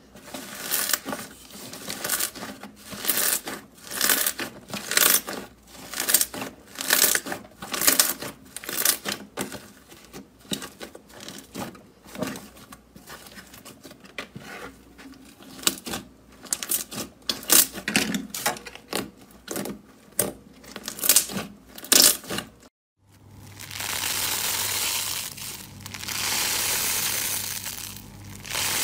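Soft pink slime pressed, squished and folded by hand in a plastic tray, giving irregular sharp pops and crackles as air pockets burst. After a short break near the end, a grainy, crunchy yellow slime is stretched and squeezed, giving a denser crackling crunch that swells in waves.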